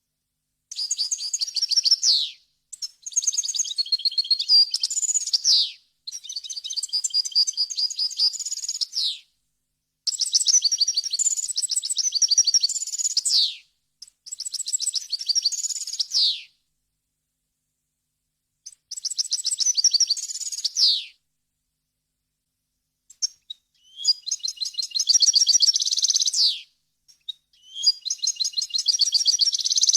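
European goldfinch singing: about eight phrases of rapid, high twittering notes, each two to three seconds long and separated by short silences. Several phrases end in a falling sweep.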